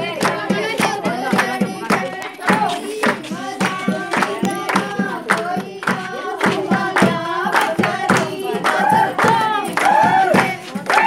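Women singing a Punjabi folk song, kept in time by a steady beat of hand claps, about three a second, with a brass plate struck along with them.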